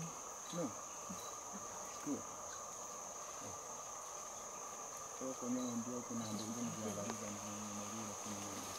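Forest insects buzzing steadily, in one high band and one lower band. From about five seconds in, a low steady hum joins them for about three seconds.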